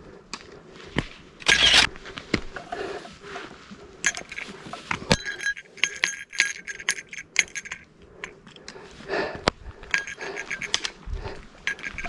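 Light metallic jingling and clinking, coming in irregular runs with scattered sharp knocks and at its busiest between about four and eight seconds in.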